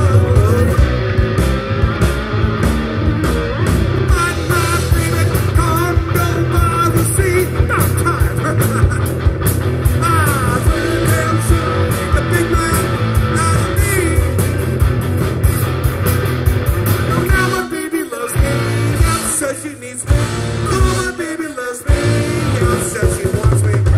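Live rock band playing: distorted electric guitars, bass and drums, with a female lead singer. The band stops briefly a few times near the end, leaving short gaps between hits.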